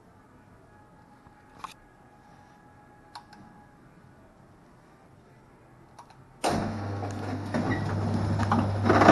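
Mendes 90 Bowlingo pinsetter machine: a few faint clicks, then about six and a half seconds in it starts running suddenly. A steady low motor hum comes with mechanical clatter, loudest near the end.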